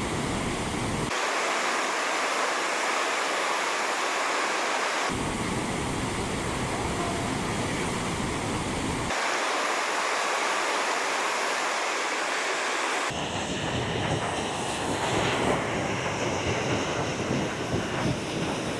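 Steady rushing roar of the Upper Falls of the Yellowstone River. It is cut together from separate recordings, so the tone of the roar changes abruptly about every four seconds, and the last few seconds are rougher and less even.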